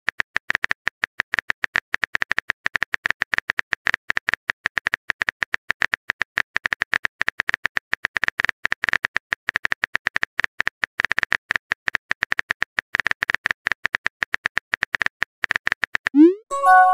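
Rapid keyboard-tap clicks from a phone texting app's typing sound effect, several taps a second. Near the end comes a short rising blip followed by a brief chime.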